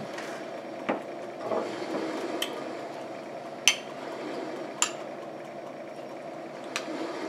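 Metal spoon clinking against a small glass bowl while sauce is stirred: about five sharp clinks, spaced roughly a second apart, the loudest about halfway through. A steady low hum runs underneath.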